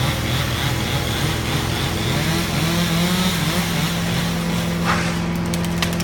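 Small engine running, its pitch wavering and then holding steady, under a loud hiss that drops away about five seconds in, followed by a few sharp cracks.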